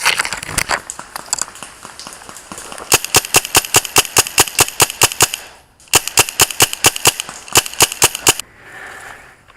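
Airsoft gun firing rapid strings of shots, about six or seven a second, in three bursts that start a few seconds in.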